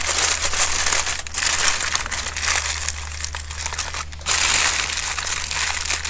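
Aluminium kitchen foil crinkling as it is folded and crimped shut by hand into a parcel, with a short lull about four seconds in.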